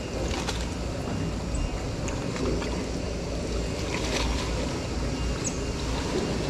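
Wind buffeting the microphone over open water, with waves lapping, a steady rumbling hiss. A few light clicks come through on top.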